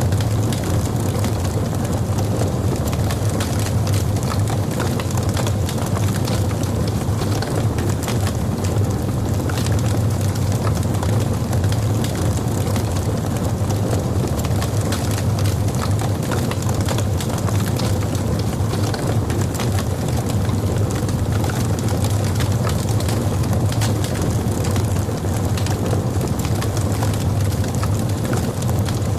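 Burning logs in a fireplace crackling, with frequent small pops over a steady low rumble.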